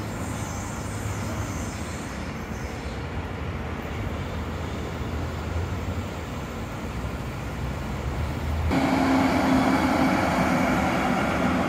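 Train running on the track, heard first as a distant steady rumble as an S-Bahn moves off. About two-thirds through, an abrupt cut brings a louder, closer train: a DB class 112 electric locomotive hauling double-deck regional coaches rolls past with a steady hum over the wheel noise.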